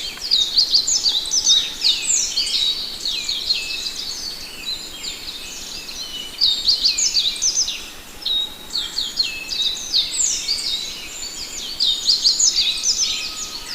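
Songbirds chirping and singing in a dense, overlapping chorus of quick, high, falling notes, with brief lulls about eight and eleven seconds in.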